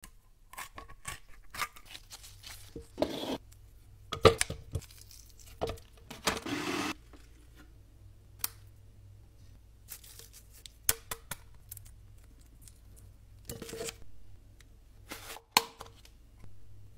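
Kitchen food-prep handling noises: scattered sharp clicks, knocks and rustles from cutting raw meat and handling a bowl, packaging and a plastic tub lid, with a longer tearing sound about six seconds in.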